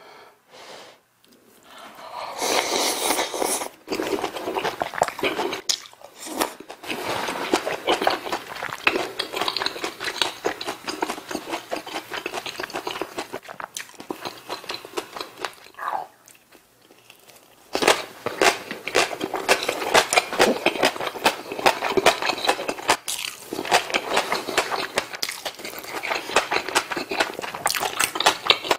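Close-miked eating of Korean home-style side dishes and rice: wet chewing, lip smacking and crunchy bites in quick succession. It starts about two seconds in, with a lull of a few seconds in the middle.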